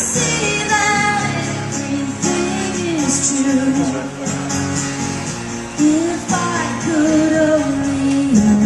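Live pop-rock band playing, with a woman singing a melodic line over guitar and percussion.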